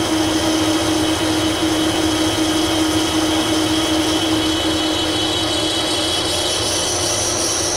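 Metal lathe running with a large steel gear blank spinning in it: a steady hum of the drive with a constant high whine, and a second, higher whine that comes in about two-thirds of the way through.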